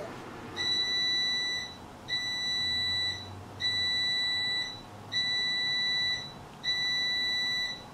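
Kitchen appliance timer beeping five times, each a steady high-pitched tone about a second long with short even gaps between them, signalling that the rest of the veggies are done cooking.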